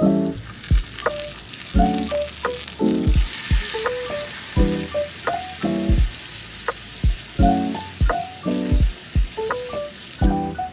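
Background music with a steady beat of low drum hits and plucked melodic notes, over a steady sizzling hiss like food frying that cuts off near the end.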